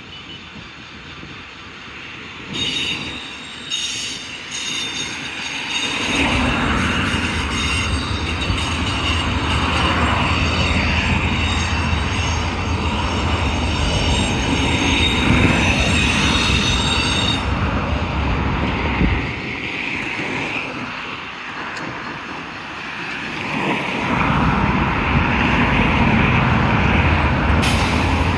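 Train rolling past with its wheels squealing on the rails. The squeal starts a few seconds in and dies away a little past the middle; the low rumble of the cars starts about six seconds in, eases for a few seconds past the middle, then builds again.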